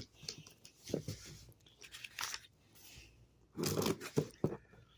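A cardboard shipping box being opened by hand: irregular bursts of tearing and rustling, with a few sharp clicks and a louder stretch of handling near the end.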